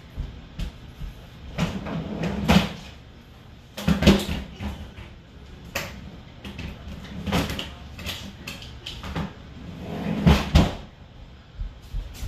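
Kitchen clatter: a series of separate knocks and bangs, about eight, a second or two apart, some in quick pairs.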